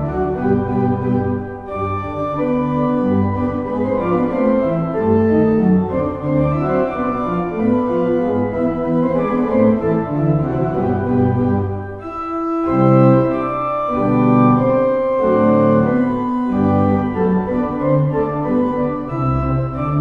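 Pipe organ played on the pedalboard alone by two players' four feet: a fast, busy run of short notes in the bass and tenor with several lines at once, with a brief break about twelve seconds in.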